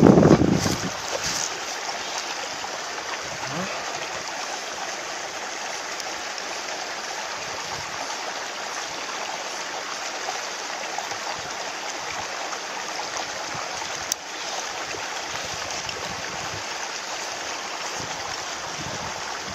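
Steady rush of running water with no break in it. A loud low rumble fades out in the first second, and there is a single sharp click about fourteen seconds in.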